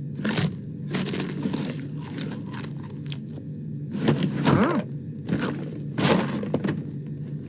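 Irregular knocks and cracks, with a short rising-then-falling vocal sound about four and a half seconds in.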